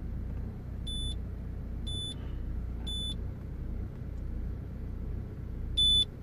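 A short, high electronic beep repeating about once a second, stopping for a couple of seconds midway and then starting again, over a steady low rumble in a car cabin.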